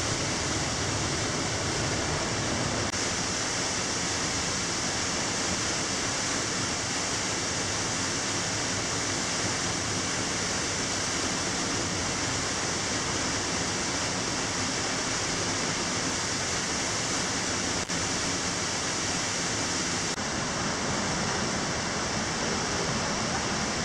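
Tall waterfall falling free from a rock cliff, heard close up in its spray: a steady, even rush of falling water.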